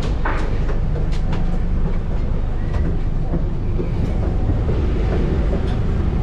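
Steady low rumble of the Ultramar passenger ferry's engines running at the dock before departure, with a few light clicks in the first second and a half.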